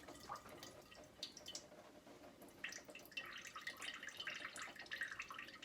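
Faint water dripping off a freshly rinsed whole turkey as it drains in a roasting pan, the drips coming thicker about halfway through.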